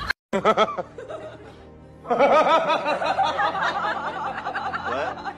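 A person laughing in repeated short bursts over background music, after a brief dropout at the start. The laughing is strongest from about two seconds in.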